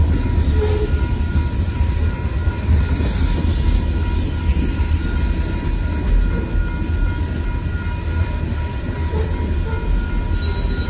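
Union Pacific manifest freight train's cars rolling past at a grade crossing: a steady heavy rumble of wheels on rail, with faint steady high tones over it.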